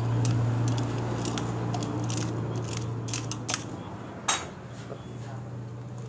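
Light metallic clinks and rattles of a stretched timing chain on a CD70 70cc motorcycle engine as it is worked loose from its sprockets by hand, with one sharper clink about four seconds in. A steady low hum runs underneath.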